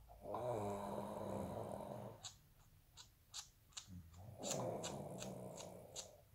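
Snoring: two long, rattling snore breaths about two seconds apart, with a string of short clicks between them.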